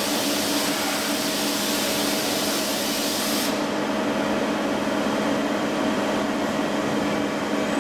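Robotic tool change on a bed milling machine's milling head: a steady machine hum, with a loud hiss that cuts off suddenly about three and a half seconds in.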